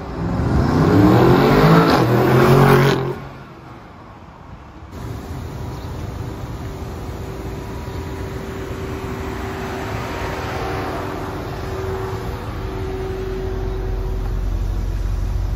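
BMW X6 engine accelerating hard for about three seconds, its note rising, then cutting off suddenly. After a short lull it runs at low speed with a steady note and a low rumble that grows louder near the end.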